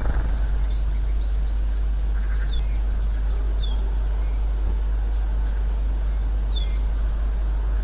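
Scattered short, high chirps from small birds, a few of them falling in pitch, over a steady low rumble.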